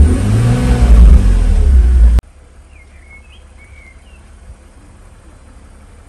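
BMW Z4 3.0's straight-six engine running and revving briefly, sounding smooth with no misfire after its ignition coil packs were swapped. It cuts off suddenly about two seconds in, leaving a quiet background with a few faint bird chirps.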